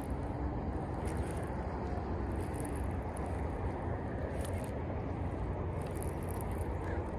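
Steady low outdoor rumble with no distinct events, even in level throughout.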